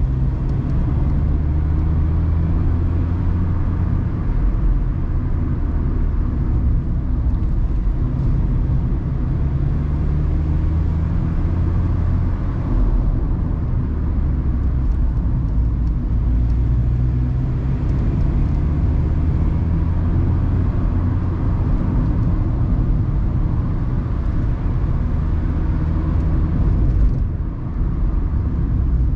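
Mazda ND Roadster's four-cylinder engine pulling on a twisty climb, heard from the open cockpit with tyre and wind noise. The engine note rises and falls with the throttle, with a brief lull near the end.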